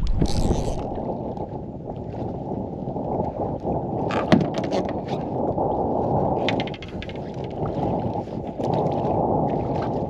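Wind buffeting the microphone over water sloshing against a small boat's hull: a steady, low rushing, with scattered sharp ticks and knocks from about four seconds in.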